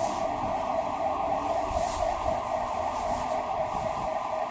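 Mill alarm siren sounding one steady, unwavering tone during the plant's lights-and-sirens test.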